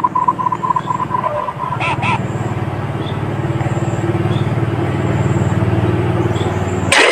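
Distorted electronic sound effects: a rapidly pulsing high beep fades out in the first second and a half, then a low, buzzing drone slowly swells, broken off near the end by a sudden loud burst of noise.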